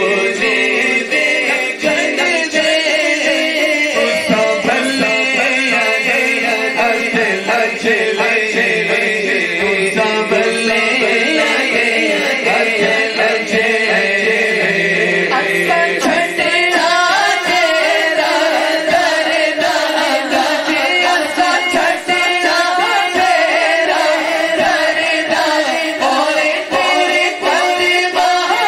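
Two men singing a naat, a devotional song praising the Prophet, together through microphones and a sound system.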